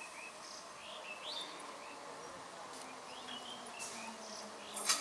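Birds chirping, short rising calls repeated every second or so over a faint outdoor background. A faint low hum from the approaching electric multiple unit local train comes in during the second half, and a brief sharp noise sounds just before the end.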